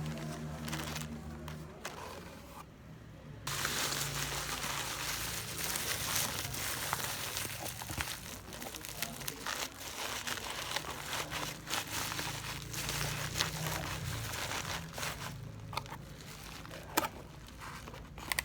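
Packaging crinkling and rustling as it is handled, a dense crackle with many small clicks that starts abruptly about three seconds in.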